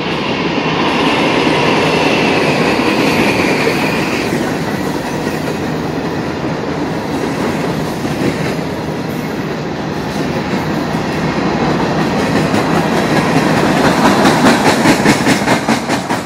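Empty freight cars of a CSX rock train rolling past, a steady rumble and clatter of steel wheels on rail. A faint high squeal sounds for the first few seconds, and a quick rhythmic clickety-clack swells near the end as wheels cross rail joints.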